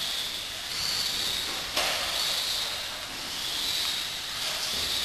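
Radio-controlled off-road buggies running on an indoor dirt track: a high motor and gear whine that rises and falls with the throttle over a steady hiss of tyres, with one sharp knock a little under two seconds in.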